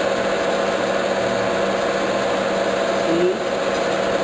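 Metal lathe running with a steady hum while its cutting tool chamfers the end of a spinning steel shaft. A short rising squeal about three seconds in.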